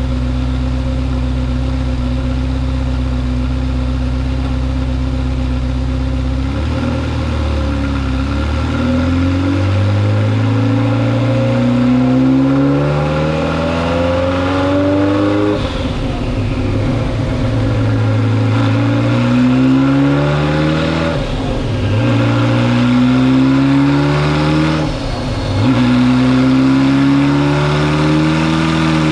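Ferrari F40's twin-turbo V8 running on a chassis dynamometer: a steady idle for about six seconds, then the revs climb in pitch in several long pulls, each ending in a sudden drop before climbing again.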